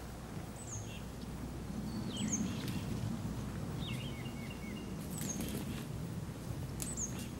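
Small birds chirping several times with short, high, falling notes, over a steady rustle and a few sharp crackles of two people's footsteps on the dry forest floor.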